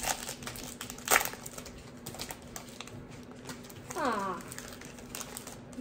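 Foil booster-pack wrapper crinkling and crackling as it is handled and torn open, with a sharper crackle about a second in. A brief sound sliding down in pitch comes about four seconds in.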